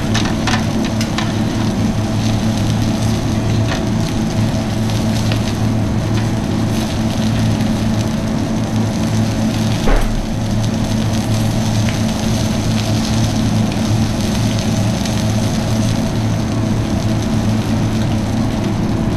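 Food sizzling on a hot flat-top griddle over a steady low hum, with a few clicks of metal tongs and one louder knock about ten seconds in.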